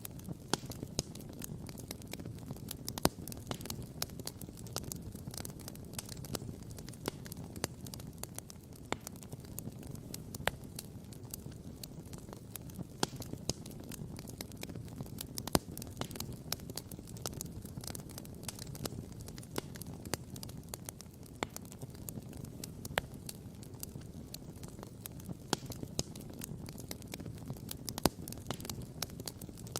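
Wood campfire crackling, with frequent small pops and a few louder snaps, over a steady low rumble.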